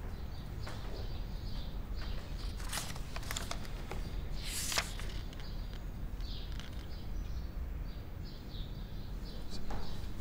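Sheets of paper rustling as pages are handled and turned, with a brief rustle about three seconds in and a louder one at about four and a half seconds. Under it runs a low steady hum with faint, scattered high chirps.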